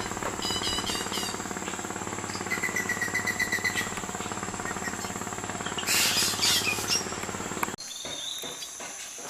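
Rainforest insects buzzing steadily with birds calling in quick runs of repeated chirps. Underneath, a steady low mechanical hum cuts off abruptly near the end, leaving only the insects and birds.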